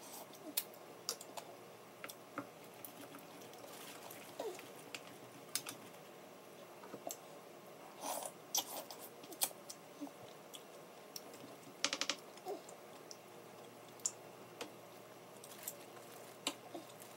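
Close-up mukbang eating sounds with snow crab and mussels: scattered sharp clicks and crackles from shells and the plastic bag being handled, with a quick run of clicks about twelve seconds in, and chewing and sucking in between.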